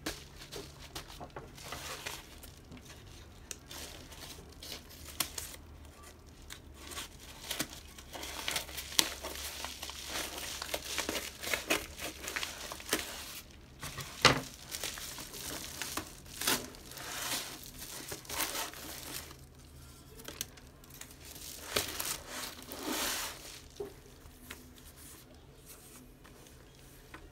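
Padded paper bubble mailer crinkling and tearing as it is handled and ripped open by hand, with one sharp crack about halfway through. Quieter rustling of paper slips near the end.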